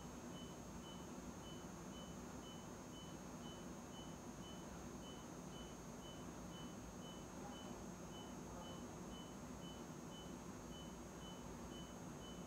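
Faint, evenly repeating short high beeps, about two a second, from the radiotherapy linear accelerator treatment room's warning signal, over a steady high whine and a low machine and air-conditioner hum.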